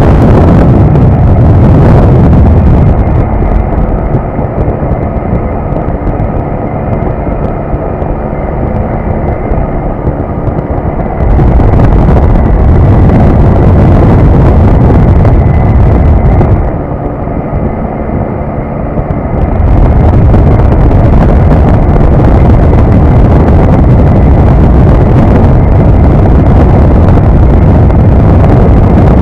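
Wind buffeting heavily on the microphone in flight aboard a Quik GT450 flexwing microlight. The steady drone of its Rotax 912 engine comes through when the buffeting eases, for several seconds a few seconds in and again briefly past the middle.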